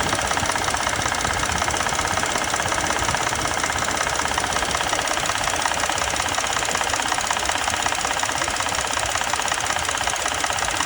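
2020 Ford Expedition's 3.5-litre EcoBoost V6 running with a steady, fast rattling clatter, like a diesel engine. This is the sign of faulty variable camshaft timing (VCT) phasers, all four of which a dealer service bulletin called for replacing.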